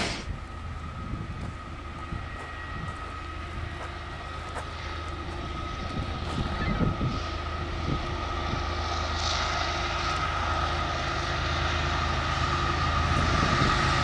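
Diesel locomotives of an approaching BNSF coal train: a low engine drone with a steady high whine over it, growing louder as the train nears.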